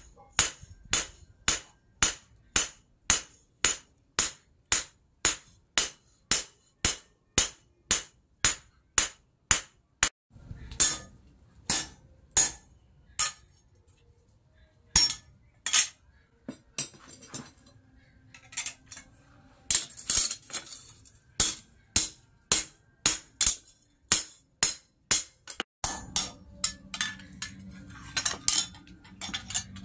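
Hand hammer striking red-hot steel on a small anvil as an axe head is forged from a tractor plough disc: ringing metal blows about two a second, then a stretch of scattered knocks midway, then steady blows again near the end.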